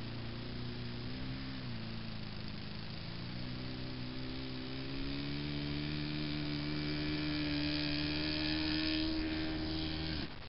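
Radio-controlled model Zero airplane's motor running steadily, its pitch rising about two to three seconds in and then holding higher and a little louder, until it cuts off abruptly near the end.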